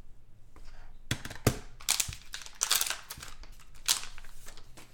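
Crinkling and rustling as trading cards and their packaging are handled, a run of irregular sharp crackles, loudest about a second in and again near the end.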